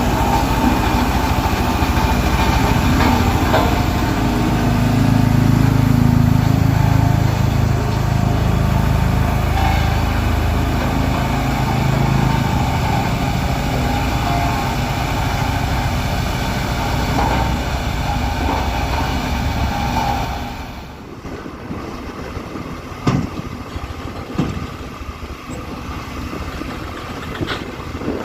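Heavy diesel earthmoving machine running under load, a steady loud engine rumble that drops away sharply about two-thirds of the way through. A quieter machine noise with a few sharp knocks remains after that.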